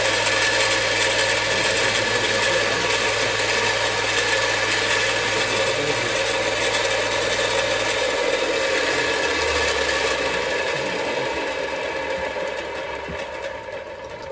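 Parkside bench grinder with belt sander running steadily with its motor humming, then switched off about eight seconds in and winding down, the hum dropping in pitch and fading away by the end.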